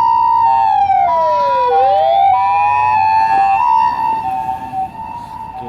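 Japanese ambulance's two-tone siren alternating between a high and a low note, with a motor siren winding down in pitch and back up again between about half a second and three seconds in. The sirens grow fainter over the last two seconds.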